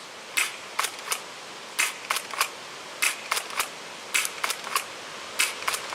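Double Eagle M101 spring pump-action airsoft shotgun being pumped and fired repeatedly: sharp clicks in quick groups of three, about five groups a little over a second apart.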